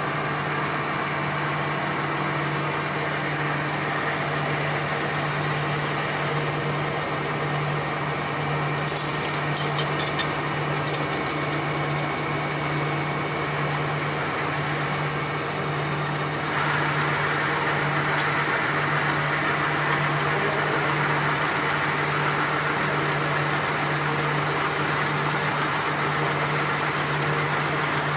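Machine-shop machinery running with a steady hum. A few sharp high clicks come about nine seconds in, and about sixteen seconds in a louder rushing noise joins and carries on.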